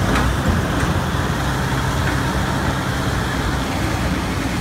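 Caterpillar forklift engine running steadily with a low, even hum.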